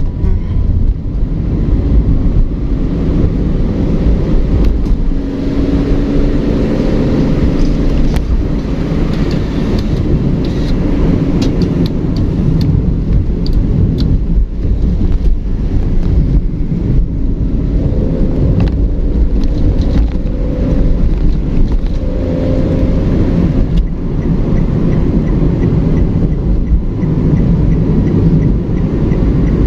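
Road traffic: a steady low rumble of vehicle engines and tyres, with engine tones rising and falling as vehicles pass and a few light clicks in the middle.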